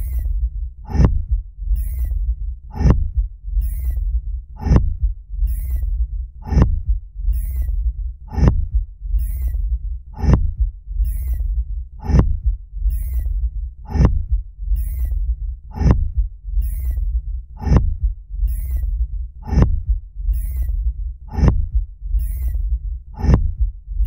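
Dune thumper sound effect: a deep, rhythmic thump about every two seconds, the device pounding the sand to call a sandworm. Each thump comes shortly after a brief high hiss, over a continuous low rumble.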